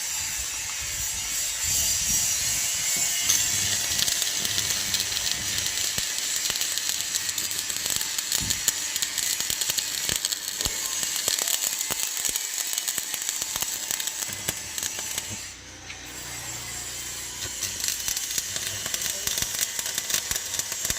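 Electric arc welding: a steady, dense crackle and sizzle of the arc. It stops for about half a second a little past the middle, then starts again.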